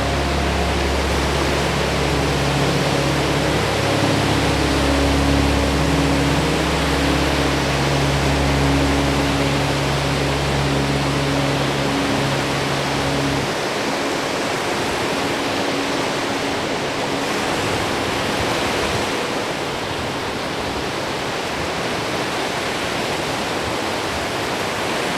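Lake waves washing in steadily with wind, a continuous full rush of water. Soft low sustained music notes sit underneath for roughly the first half and stop about halfway through.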